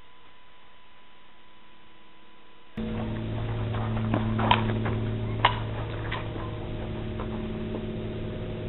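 Steady electrical hum, faint at first and then much louder from about three seconds in, with a few sharp clicks in the middle.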